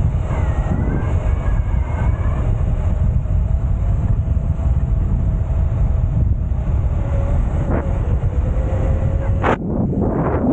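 Enduro motorbike engine running while riding on beach sand, mostly buried under heavy wind buffeting on the microphone. There is a sharp knock near the end.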